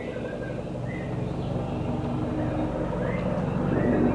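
Helicopter flying low overhead, its rotor beating steadily over the engine and growing louder as it comes closer. A bird whistles a few short chirps over it.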